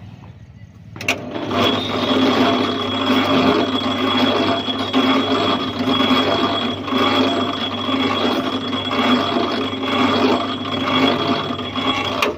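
Electric construction material hoist switched on with a click about a second in, its motor and winch running loudly and steadily with a high whine, then switched off with a click near the end.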